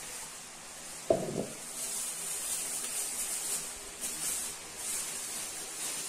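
Thin plastic bag rustling and crinkling in short bursts as a ball of dough is wrapped in it by hand, with one dull knock about a second in, where the dough or a hand hits the plastic mixing bowl.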